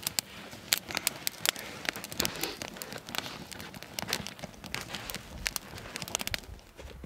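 Small wood campfire crackling, with many sharp, irregular pops and snaps.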